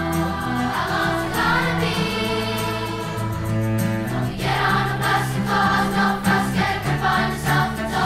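Background music: a choir singing long held notes, with a rhythmic accompaniment coming in about four seconds in.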